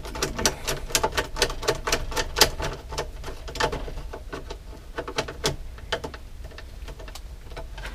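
A Siemens 15 A GFI breaker being worked into its slot in a home's main electrical panel: a quick, irregular run of small clicks and taps that thins out after about five seconds.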